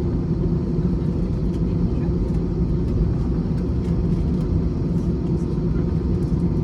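Steady engine and airframe rumble inside an Airbus A321's cabin on the ground, with a low steady hum and occasional faint ticks.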